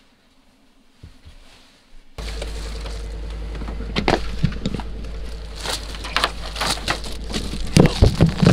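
Faint rustling, then, over a steady low rumble that begins suddenly, a run of sharp crunching and cracking steps in frozen snow.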